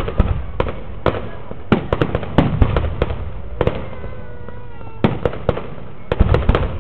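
Fireworks display: aerial shells going off in a string of sharp bangs over a low rumble, thinning briefly midway, then packing into a rapid cluster of bangs near the end.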